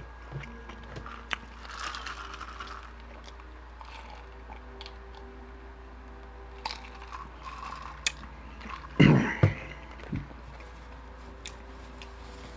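Close-miked eating sounds: chewing with scattered soft clicks and smacks of the mouth. A louder low thump and knock comes about nine seconds in.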